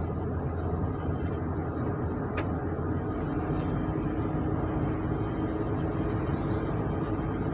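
Ford Transit van's engine and road noise from inside the cab as it accelerates towards 80 km/h on a road test for a random misfire. The van runs steadily, with no audible stumble.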